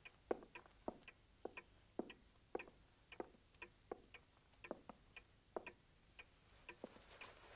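Faint ticking of a clock: a steady tick-tock of roughly two to three ticks a second.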